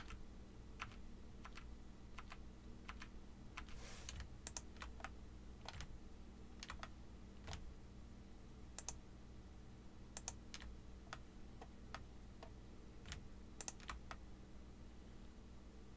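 Irregular clicks of a computer keyboard and mouse, about one or two a second, as keys and buttons are pressed, over a faint steady hum.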